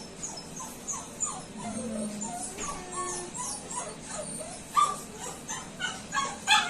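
Dog whimpering in a run of short, high, falling whines, with two louder yelps about five seconds in and near the end.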